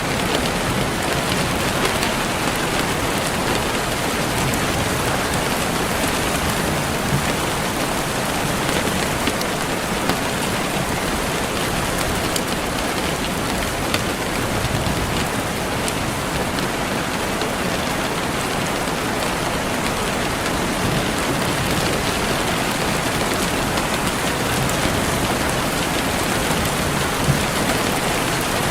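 Steady rainfall pattering on a surface, an even hiss with scattered individual drop ticks.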